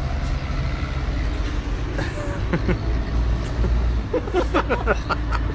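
Steady low rumble like a running vehicle, with a few short voice-like sounds in the second half.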